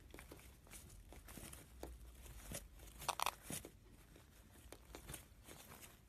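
Faint scattered clicks and scratchy taps from small parrots moving and pecking, with one short squeak about three seconds in.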